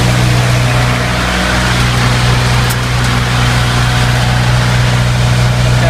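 A four-cylinder, naturally aspirated 30 kW diesel generator running at a steady speed with a constant low hum. A faint tick comes about halfway through.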